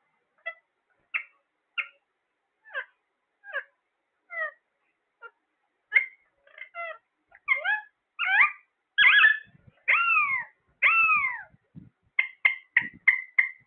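Parrot calling: short chirps come a half second to a second apart, then build to louder, longer squawks that arch down in pitch. Near the end there is a quick run of about six short, even calls.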